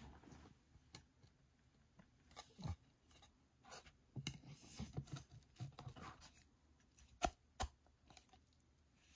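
Faint handling noise as a frosted acrylic panel is slotted into a wooden lamp base: light scrapes and rustles, busiest around the middle, then two sharp clicks in quick succession a little over two-thirds through.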